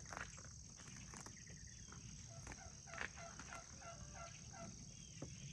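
Faint steady high buzz of summer insects in a corn patch, with scattered rustles and snaps of corn stalks and leaves. Midway, a bird gives a quick run of short calls, like a farmyard fowl.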